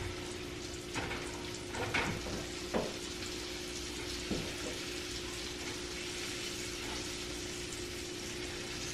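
Food sizzling steadily in a frying pan on the stove, with a few short knocks and scrapes in the first half as it is handled and plated.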